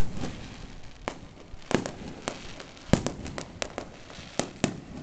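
Aerial fireworks display: a string of sharp bangs from shells bursting overhead, roughly one or two a second at uneven spacing, the loudest at the very start, with faint crackle between.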